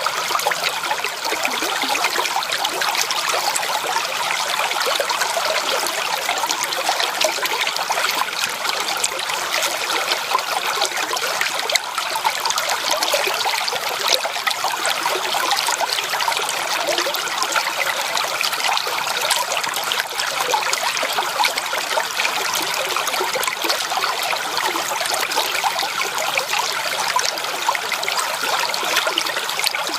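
Small creek of calm water trickling and gurgling over stones, a steady babble.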